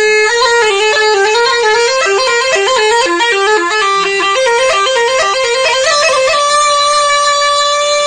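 Neyanban (southern Iranian bagpipe) playing a fast bandari melody in quick stepping notes, then holding one long steady note from about six seconds in.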